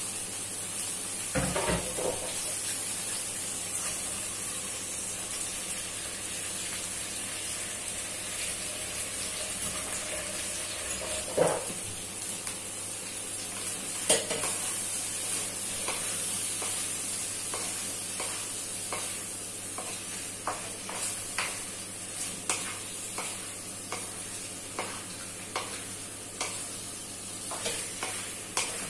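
Whole shrimp sizzling in garlic butter in a wok while a wooden spatula stirs and turns them, knocking and scraping against the pan. There are a few sharp knocks in the first half, and the spatula strokes come quick and frequent in the second half over the steady sizzle.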